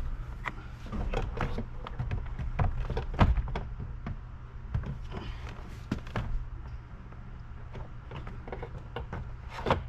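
Jeep Grand Cherokee interior door panel being pried off with a flat pry bar, its white plastic snap-in clips popping loose: a string of irregular clicks, taps and knocks.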